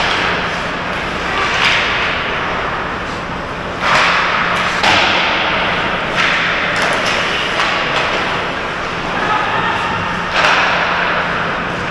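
Ice hockey play close to the net: skate blades scraping and carving the ice in bursts as players stop and turn, with sharp knocks of sticks and puck and several thuds, the loudest about four seconds in and again near the end. A steady low hum lies underneath.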